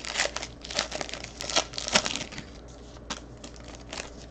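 Foil trading-card pack wrappers crinkling and crackling as the packs are handled. The sound is busiest in the first two and a half seconds, then thins to a few light crackles.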